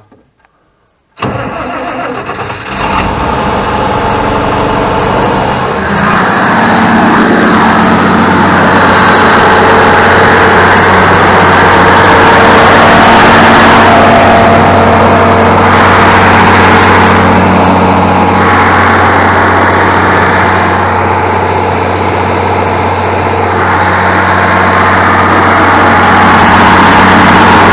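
International Harvester 1586 tractor's six-cylinder diesel engine being cranked and starting: the starter kicks in suddenly about a second in, the engine catches within a couple of seconds, and it settles into a steady, loud run.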